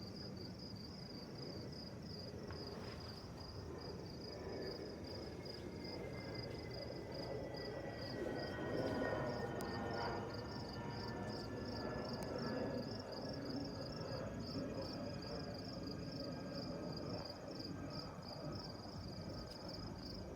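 An aircraft passing overhead: a distant rumble with tones that fall slowly in pitch, swelling to its loudest about nine to ten seconds in and then easing. Crickets chirp in a steady, even pulse throughout.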